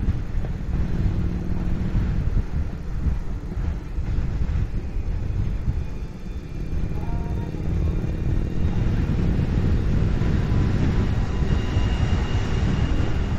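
Harley-Davidson Street Rod's V-twin engine running at highway cruising speed, with wind and road noise. The loudness dips briefly about six seconds in, then holds a little higher.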